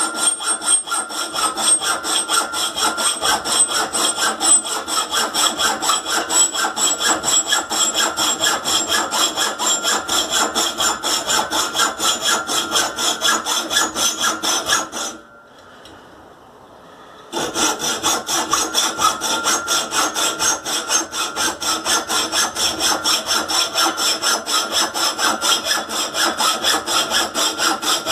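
Hacksaw cutting a slot in a forge burner pipe, with steady back-and-forth strokes at about two or three a second. A high ringing tone from the pipe runs through the strokes. The sawing stops for a couple of seconds about halfway through, then starts again.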